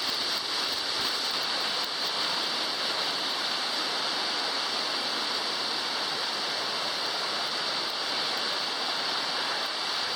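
Waterfall: steady rushing and splashing of falling water.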